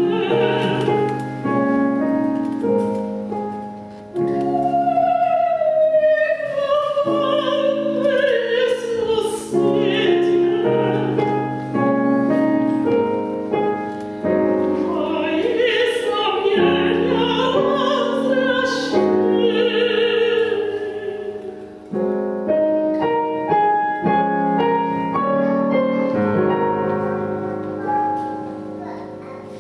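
A woman singing a slow classical song with vibrato, held notes sliding between pitches, over piano accompaniment. Twice the voice stops briefly while the piano plays on.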